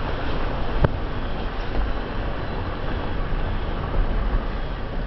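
Steady road and engine noise of a slowly moving car, with a single short click about a second in.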